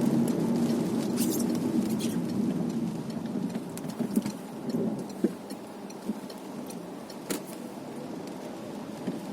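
Car cabin noise while driving in the rain: a steady low road rumble with scattered light ticks of raindrops on the car. The rumble eases after about three seconds.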